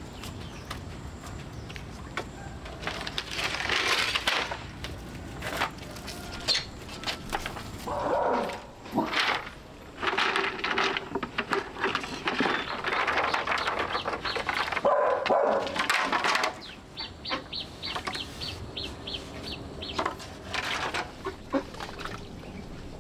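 Domestic animals calling, mixed with scattered knocks and clicks, and a quick run of high ticks about three-quarters of the way through.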